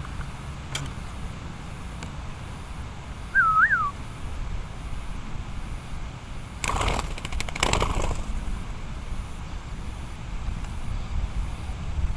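Strong wind buffeting the microphone with a steady low rumble. About three and a half seconds in, a single short, loud whistled note that rises and falls; a second or two of rustling follows about halfway through.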